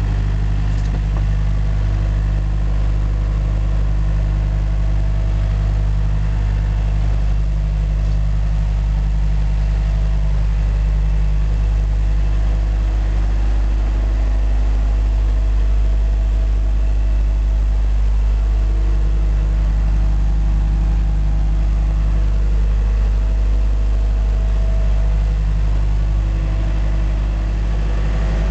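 A steady, loud low hum, unchanging throughout, made of a deep drone with evenly spaced overtones.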